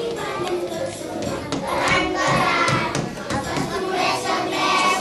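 Group of young children singing a Christmas song together over musical accompaniment, with some hand clapping.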